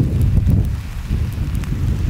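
Wind buffeting the microphone in a low, steady rumble, with a few faint sharp crackles from the cooling skin of an advancing pahoehoe lava flow.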